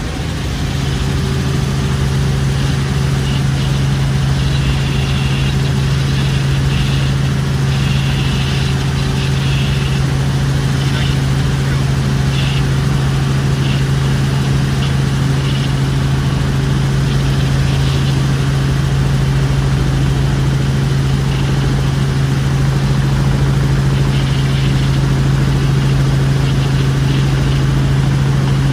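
Helicopter engine and rotor drone heard from inside the cabin in flight: a steady hum with one strong constant low tone, growing slightly louder in the first second.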